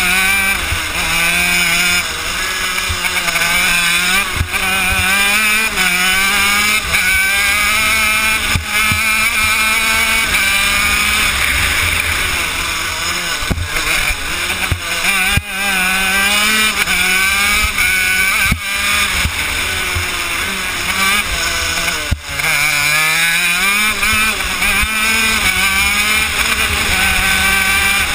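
The Honda CR80 two-stroke single-cylinder engine of a shifter kart at racing speed. Its revs climb and drop again and again as the kart accelerates down the straights and slows for the corners.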